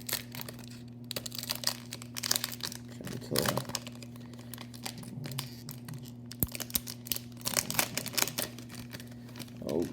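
Crinkly wrapper of a 2020 Bowman Baseball card pack being torn open and handled, an irregular run of crackles and rips.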